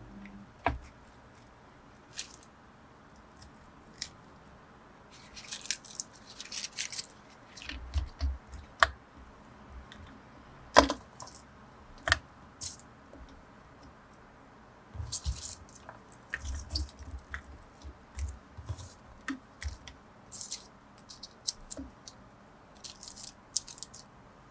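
Kitchen handling noises from food preparation: scattered light clicks and knocks of utensils and containers, with short bursts of rustling and a few soft low thumps. The loudest knock comes about eleven seconds in.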